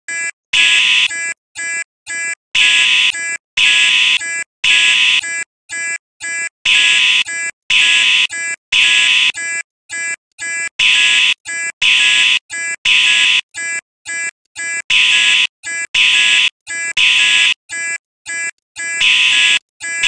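Fire alarm sounding: a loud, buzzy electronic tone in repeated pulses, a longer blast about once a second with shorter, quieter pulses between.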